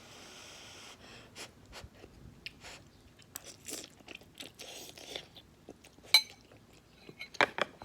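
Close-up eating of Samyang carbonara hot chicken ramen: wet chewing with many small irregular mouth clicks. A few sharp, louder clicks come about six seconds in and near the end.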